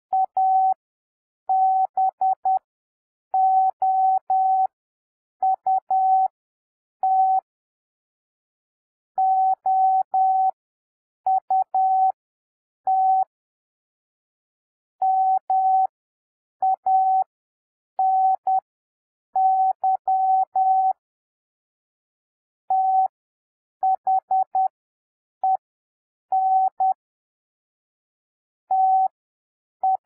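Morse code practice tones: a single steady-pitched tone keyed on and off in dots and dashes, sending common English words. The characters are sent at 10 words per minute with extra space between characters and words, for a slower 7 WPM overall (Farnsworth-style spacing).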